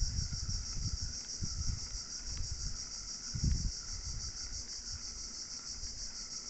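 A steady, high-pitched chorus of insects with a fainter wavering buzz beneath it. There are low bumps on the microphone in the first two seconds and again about three and a half seconds in.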